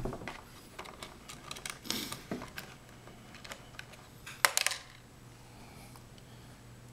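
Scattered small clicks and light metallic taps from a screwdriver and small screws being handled on a laptop, with a quick cluster of louder clicks about four and a half seconds in.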